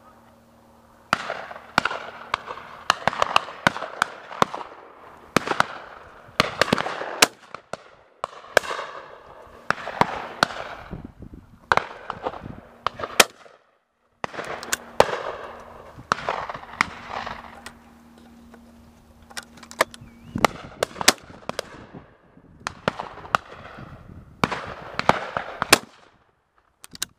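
Shotgun fire from several guns at a driven shoot: dozens of sharp shots in quick, irregular succession, some close and loud, others fainter and farther off, each trailing a short echo. There is a brief pause about halfway.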